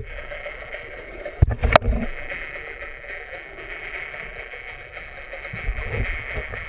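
Muffled underwater sound picked up by a camera in a waterproof housing: a steady hiss of moving water, with a few sharp knocks about a second and a half in.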